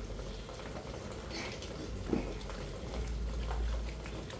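Steady hiss of rain falling, with small splashes of swimming-pool water; a low rumble comes in about three seconds in.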